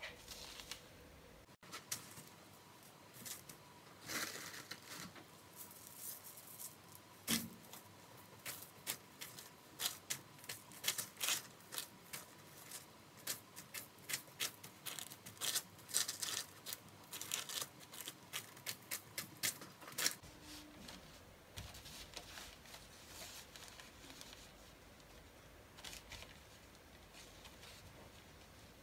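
Baking paper crinkling and crackling under fingertips as soft pizza dough is pressed and spread out on it: a long run of quick small crackles that thins out over the last several seconds.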